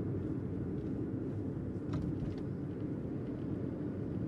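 Steady low rumble of a car on the road, heard from inside the cabin, with a few faint ticks.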